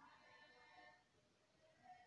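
Group of women singing a Haitian Creole hymn, faint; the voices are strongest in the first second, thin out, and swell again briefly near the end.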